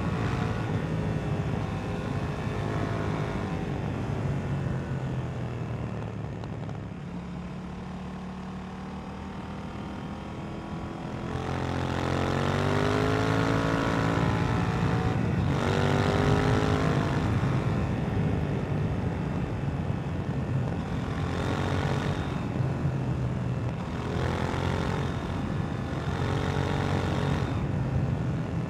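2018 KTM 790 Duke's parallel-twin engine through its stock exhaust, heard from the rider's seat while riding at speed. It runs steadily, eases off for a few seconds, then about twelve seconds in it pulls hard with rising revs that break and climb again several times as it shifts up through the gears.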